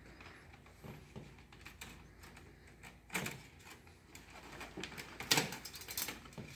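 Steel band saw blade clicking and rattling as it is twisted and folded into coiled loops by hand. A louder clatter comes about three seconds in and a quick run of clicks just past five seconds.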